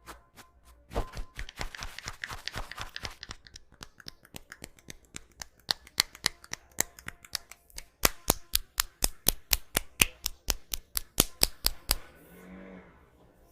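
A barber's hands striking in quick percussive massage strokes: a loose run of sharp slaps and pats, then a very regular stretch of about five sharp strikes a second that stops suddenly. A short low hum follows near the end.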